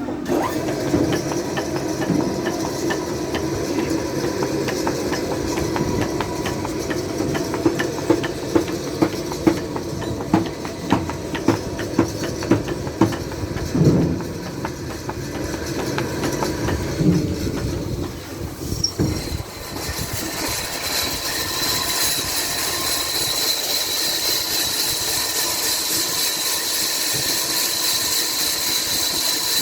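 Sawmill machinery running with a clattering rumble and rapid knocks, with a regular knocking about twice a second in the middle. About two-thirds of the way through it changes to a steady high whine with hiss.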